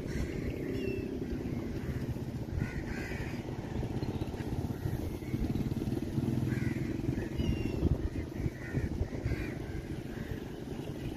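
Crows cawing several times, in two or three short bouts, over a steady low rumble of outdoor background noise.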